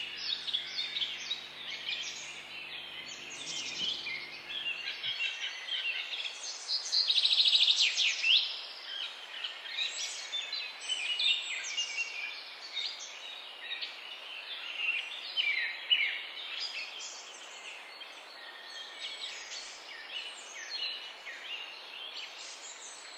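A chorus of many birds calling and chirping together, short high calls and trills overlapping, with a louder burst of rapid chirps about seven seconds in. A low steady hum lies under the first five seconds and cuts off suddenly.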